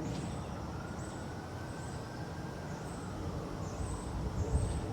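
Outdoor background noise: a steady low rumble like distant traffic, with a faint long tone that slowly rises and falls, and a few faint high chirps.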